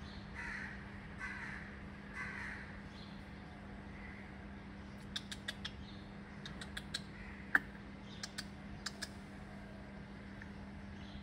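Faint, harsh animal calls: three in the first three seconds, with a few fainter ones later. Scattered sharp clicks come between about five and nine seconds in.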